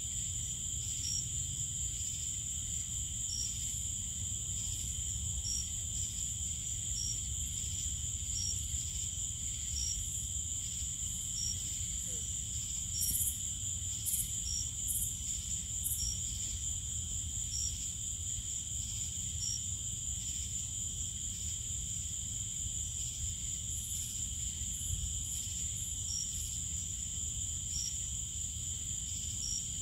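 Night insect chorus: steady high-pitched trilling of crickets and other night insects, with one insect's short chirp repeating at an even pace a little over a second apart, over a low steady background rumble.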